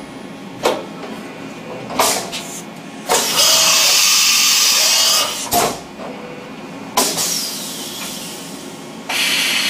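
CNC machining centre with a rotary fourth-axis indexer working a brass part. Several sharp clicks are heard, and a loud hiss starts about three seconds in and lasts about two seconds. The machine is loud again near the end.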